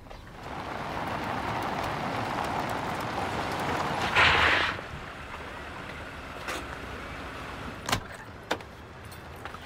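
A car's engine and tyres as it drives off: a steady rushing noise that swells to a loud peak about four seconds in, then stops abruptly. After that a quieter outdoor background with a few sharp clicks and knocks.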